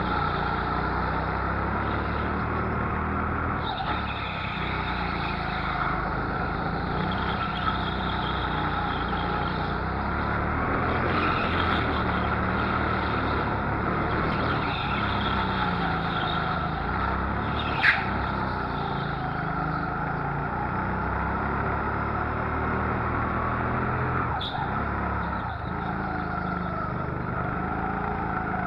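Go-kart motor heard onboard while lapping, its pitch rising and falling again and again through the corners. A sharp knock comes about eighteen seconds in and a smaller one near the end.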